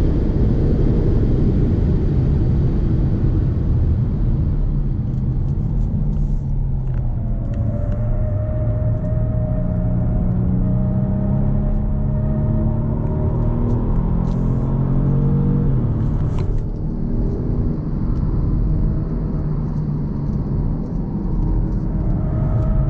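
2018 Kia Stinger GT's twin-turbo V6 pulling hard at speed on a race track, its engine note climbing steadily for several seconds, then dropping suddenly at an upshift, over a heavy low road and wind rumble.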